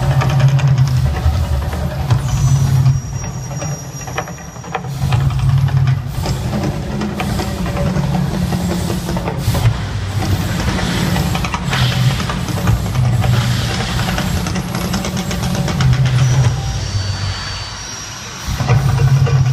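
The Mirage volcano show erupting: deep rumbling pulses that surge and ease every second or two over a constant loud hissing noise, from the show's amplified eruption sound and its gas fire and water jets.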